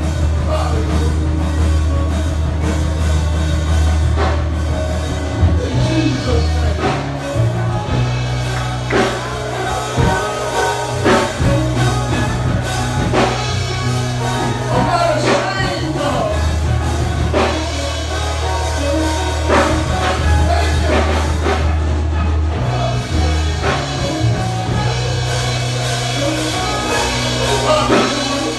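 Gospel worship music: a band plays, with a steady bass line and regular drum hits, and voices sing over it.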